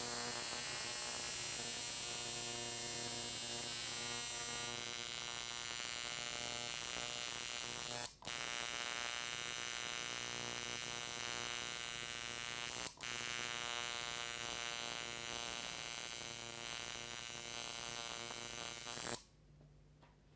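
An electric tattoo machine buzzes steadily as the needle works into the skin of a forearm. It stops briefly twice, at about a third and about two-thirds of the way through, and cuts off just before the end.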